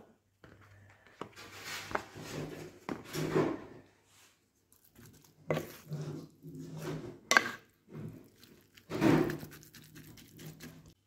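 Wooden spoon scraping and knocking against a glazed clay tagine while mixing minced meat with chopped onion and spices. The scrapes come in uneven bursts with a few sharp clacks of wood on earthenware.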